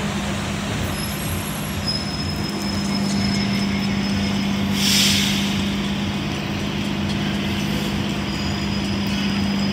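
City transit bus idling at a stop with a steady low hum, and a short hiss of air about halfway through from its air brakes.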